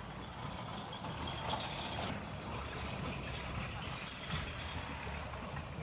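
Steady low rumble of road traffic, with faint scattered street noises.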